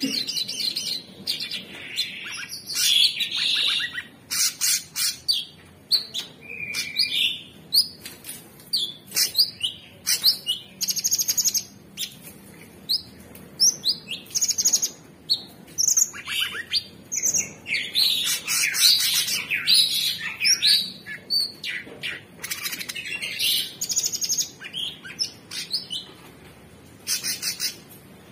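Male orange-bellied leafbird (cucak cungkok) singing a long, fast, varied song of rapid high trills, chattering runs and rising and falling whistles, with only short breaks.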